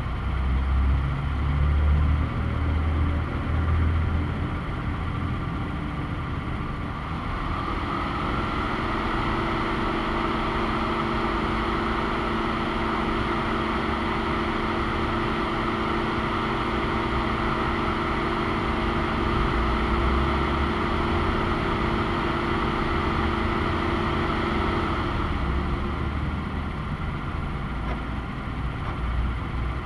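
Motor vehicle engine and traffic noise. A low rumble in the first few seconds gives way to a steady engine drone from about eight seconds in, which fades out near twenty-five seconds.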